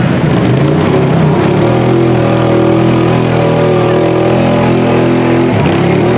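Monster mud ATV on giant tyres with its engine revving hard under load as it churns through deep mud. The pitch climbs in the first second or two, holds high and steady, and falls off near the end.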